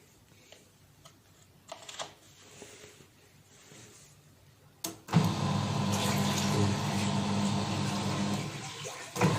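A few faint clicks, then a sharp click about five seconds in as the washing machine's motor is powered directly through a test cable, bypassing the electronic control module. The motor starts with a steady hum and churning water and keeps running, with a brief break near the end. It runs when the module is bypassed, so the fault seems to lie in the electronic control module.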